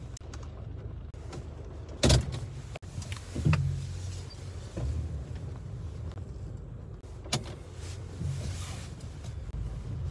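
Inside a moving car: the low, steady rumble of the engine and tyres on a wet road, broken by a few sharp knocks. The loudest knock comes about two seconds in, and there are others at about three and a half and seven and a half seconds.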